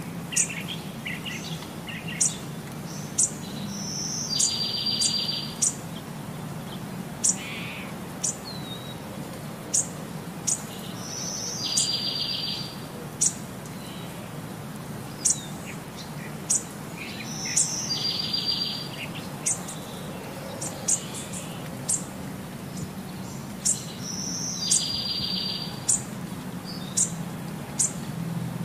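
Birds chirping: short high chirps several times a second, with a longer trilled phrase that comes back about every seven seconds, over a low steady hum.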